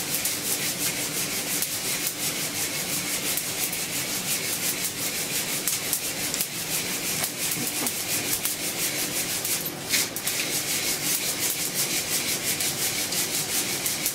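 Coffee beans rasping and rattling as they are shaken back and forth in a hand-held mesh roaster over a gas flame, in a steady rhythm. Beneath it is the fine crackling of second crack, the sign of a dark roast heading past French roast.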